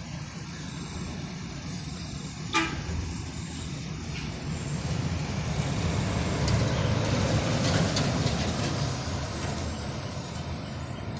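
Road traffic: a vehicle horn gives a short toot about two and a half seconds in, then a heavy vehicle passes, its engine and tyre noise swelling and fading.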